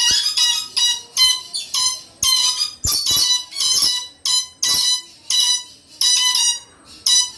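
Moluccan red lories calling: a run of loud, shrill screeches, about two a second, each one short and ringing.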